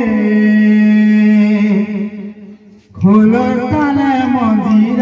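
Kirtan singing: devotional singing holds a long steady note that fades and breaks off about two and a half seconds in. The singing starts again a moment later with a moving melody.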